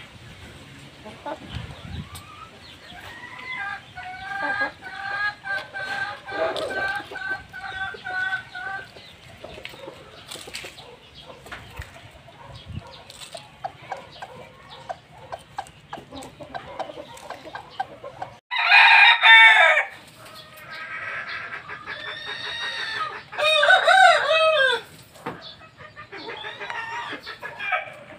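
Rhode Island Red chicken clucking and calling: a run of short repeated notes early, then louder, drawn-out arching calls in the second half.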